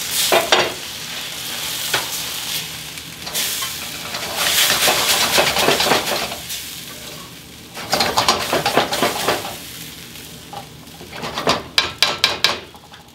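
Eggplant and peppers sizzling in sauce in a hot wok, stirred and tossed with a spatula in several surges. Near the end comes a quick run of scrapes and clicks of the spatula against the wok.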